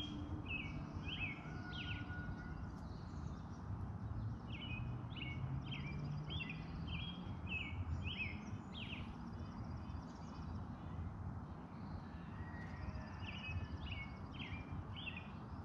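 A small bird chirping in three runs of short, quick notes, over a steady low outdoor rumble.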